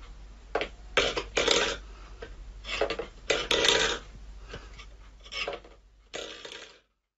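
A cat's paw scraping and rattling an empty stainless steel bowl across a wooden floor, in about seven short rasping bursts.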